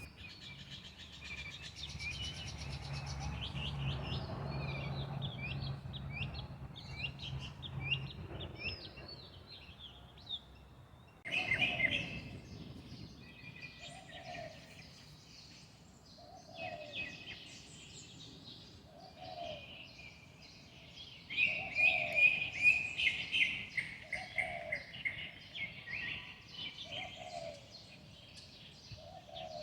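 Many birds chirping and twittering together, a busy chorus of short high calls. From about a third of the way in, a lower call repeats roughly every two and a half seconds beneath the chirping, and a faint low hum lies under the first several seconds.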